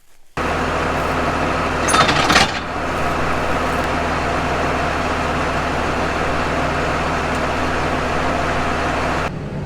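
Tractor engine running steadily, with a brief loud clatter about two seconds in.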